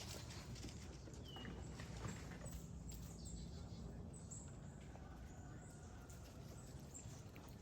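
Squirrels scurrying and handling nuts: faint, scattered light taps and patter, with a brief high chirp about a second and a half in.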